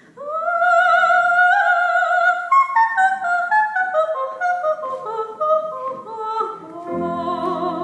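Soprano singing in operatic style with vibrato, through a microphone: a long high note, then a run of short notes stepping downward, settling on a lower held note near the end.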